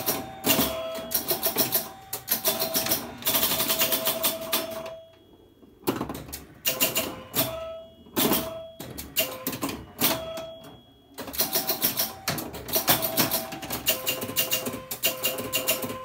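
Bally Night Rider electromechanical pinball machine in play: rapid mechanical clicking and clattering of score reels and relays, with ringing chime tones as points score. The action lulls briefly twice, about five and ten seconds in.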